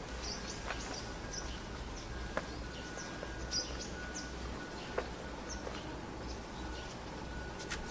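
Outdoor ambience: small birds chirping in short high notes, over a thin steady high tone that keeps breaking off and a low background rumble, with a few faint clicks.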